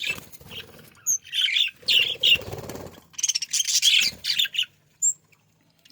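A group of pet budgerigars chattering and chirping in quick bursts, with short gaps between the bursts.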